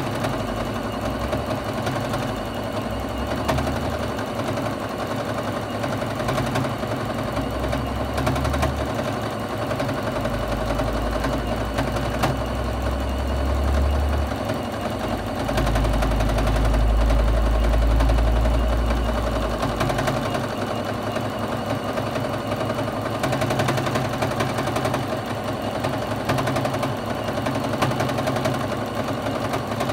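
Juki HZL-F600 domestic sewing machine stitching continuously during free-motion quilting, its running pitch and level shifting as the stitching speed changes, louder and deeper for a few seconds past the middle.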